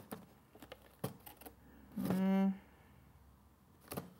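Light clicks and rustling of hands rummaging among boxes inside a cardboard carton, with a short hesitation sound from a man, held on one pitch, about two seconds in.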